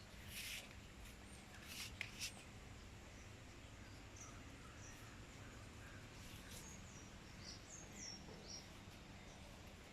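Quiet outdoor background with faint bird chirps, several short high calls in the second half. A few brief rustling clicks come in the first couple of seconds.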